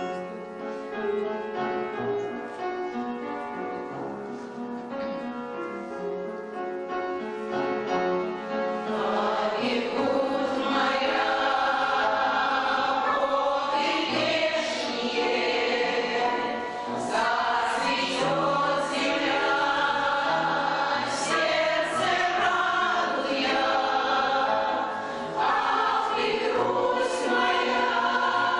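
An amateur choir singing a song with instrumental accompaniment. For about the first nine seconds the accompaniment plays alone in held notes, then the choir comes in and sings on to the end.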